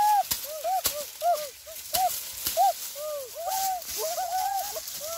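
Many short, arching animal calls, repeated a few times a second and overlapping, over the crackle of dry sugarcane leaves and sharp knocks of a knife hacking sugarcane stalks.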